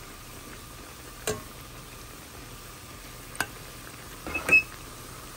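Churro dough deep-frying in a pot of hot oil, a steady sizzle. Sharp clicks come about a second in and again at about three and a half seconds, with a louder cluster of knocks near the end.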